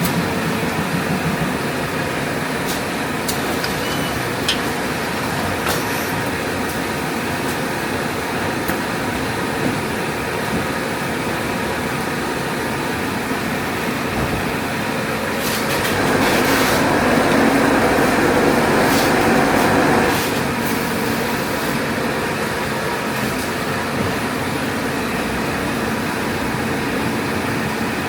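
ATR-320B automatic turret rewinder running at production speed: a steady mechanical running noise with faint hum tones and occasional sharp clicks. It grows louder for about four seconds past the middle, then settles back.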